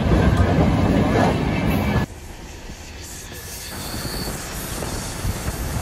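Moving train's wheels running on the rails, a loud, even rumble heard from on board. About two seconds in it drops abruptly to a quieter rumble that slowly builds again.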